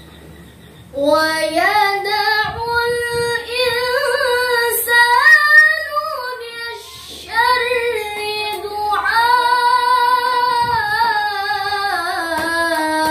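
A young woman singing solo and unaccompanied, a sholawat in a high, heavily ornamented style with long held notes. The voice comes in about a second in, pauses briefly for breath around the middle, then carries on with another long, wavering phrase.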